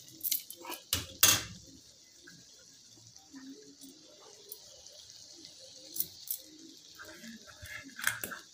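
A spoon knocking and scraping against a kadai of eggplant bharta as it is stirred: several sharp clinks in the first second and a half, quieter rustling after that, and a few more clinks near the end, over a steady high hiss.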